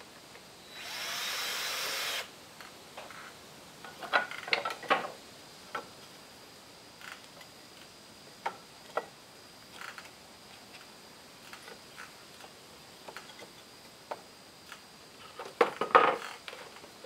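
A power tool runs briefly for about a second and a half, starting about a second in. Scattered knocks and clatter of wooden boards follow as boards are fitted, with the loudest knocks a few seconds in and near the end.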